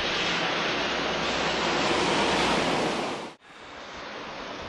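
Tyre hiss of a car passing on the wet road inside the tunnel, a rushing noise that swells for about three seconds and then cuts off suddenly, leaving a quieter steady rush.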